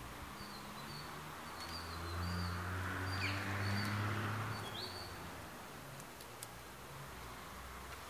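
Small birds chirping: a string of short, high chirps in the first five seconds, over a low hum that swells midway.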